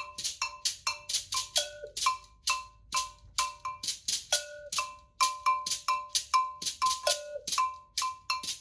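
Iron double bell (gankogui) struck with a stick in a steady rhythmic pattern, about three to four strokes a second, each stroke a sharp clank with a short metallic ring, mostly on the higher bell with occasional strokes on the lower one.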